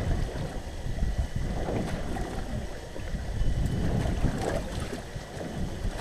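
Wind rumbling on the microphone and lake waves slapping a small boat's hull, with water splashing and streaming off a gill net as it is hauled in over a net hauler's roller; a couple of louder splashy rushes, about two seconds in and again past the middle.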